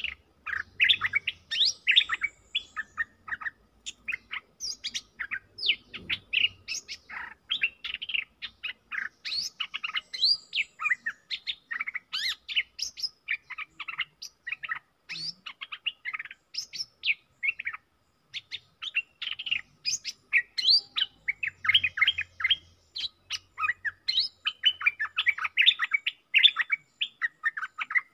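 Stripe-throated bulbuls singing: a fast, nearly continuous stream of short, quick chirping and warbling notes, with a brief pause about two-thirds of the way through.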